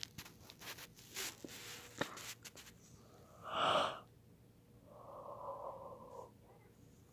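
A person's breathing and mouth sounds right at a phone's microphone: small clicks, one loud breathy exhale about three and a half seconds in, then a short voiced sound.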